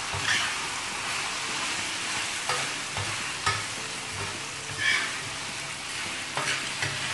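Boneless chicken pieces with ginger-garlic paste frying in oil on a tawa, a steady sizzle, with a perforated steel spoon scraping and tapping against the griddle several times as the pieces are stirred. The sizzle is the sign that the water the chicken released has cooked off and the pieces are now frying in the oil.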